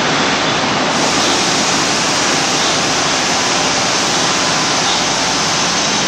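PKP EP09 electric locomotive standing with its cooling blowers running: a steady, loud rushing noise.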